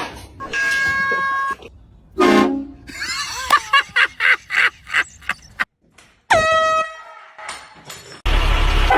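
Air horn blasts: a steady horn note lasting about a second near the start, a shorter one at about six seconds, and a very loud, harsh blast starting near the end. Voices are heard in between.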